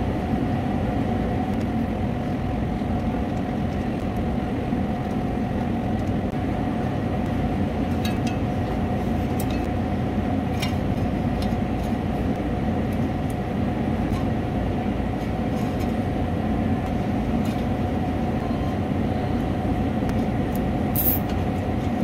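Steady drone of running refrigeration fans and machinery with a constant hum. A few faint clicks of metal parts being handled, the loudest near the end.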